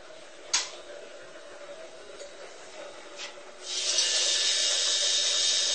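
Electric shaver running inside a bathroom cabinet, the buzz taken for a neighbour's hammer drill: a faint steady hum that turns suddenly loud about four seconds in. A sharp click comes about half a second in and a softer knock about three seconds in.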